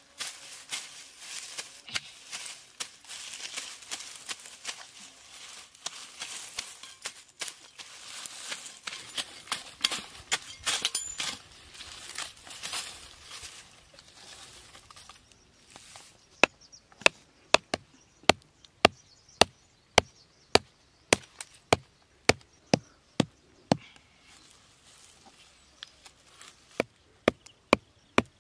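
Rustling and scraping in grass and dry leaf litter, then a blade chopping into the base of a woody stalk with sharp, regular strokes about two a second, pausing briefly before starting again near the end.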